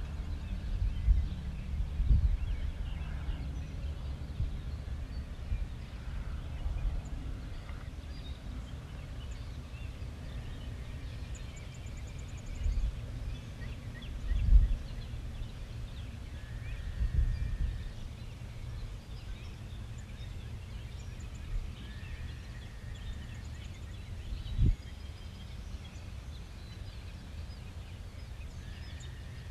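Outdoor background noise: a low, gusty rumble like wind on the microphone, with a few thumps, the loudest about halfway through and a sharp one near the end. Faint bird calls come and go above it.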